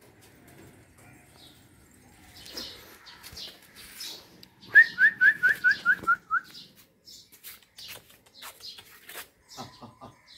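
A bird calling: a quick run of about nine short, clear notes in under two seconds, each slurring slightly down, the run stepping gradually lower in pitch. Faint scattered clicks and chirps sound around it.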